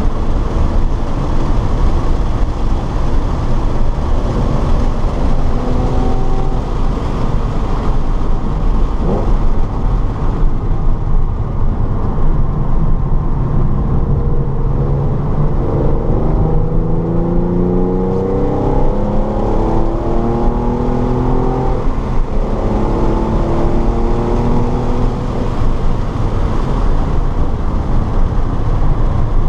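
Race-track car engine under hard acceleration, with heavy road and wind rumble. The engine pitch climbs steadily, drops sharply at an upshift about two-thirds of the way through, then climbs again.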